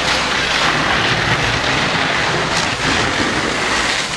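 Fire hose streams spraying water into a burning building: a loud, steady hiss and rush of water, with a low rumble underneath.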